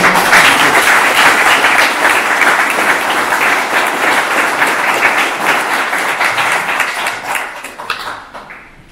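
An audience applauding, a dense patter of many hands clapping that starts at full strength and slowly dies away near the end.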